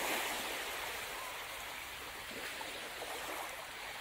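Rushing water with a steady hiss that sets in suddenly and grows gradually quieter.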